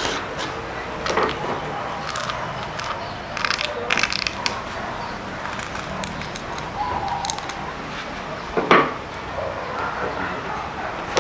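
A pen-like scraper scratching lines into a sheet of dried cow hide: irregular short scratches, with one louder sharp scrape or knock near the end.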